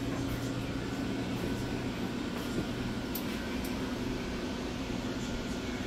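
A steady low hum from household machinery, with a faint higher whine over it and a few soft ticks.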